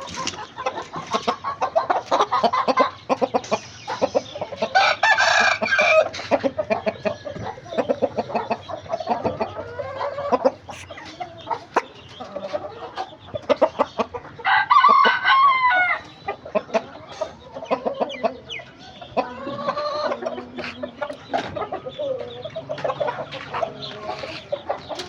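Aseel chickens clucking continuously, with a rooster crowing twice, about ten seconds apart.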